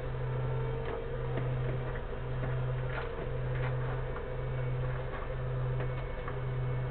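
A steady low hum that dips briefly about once a second, with faint scattered ticks over it.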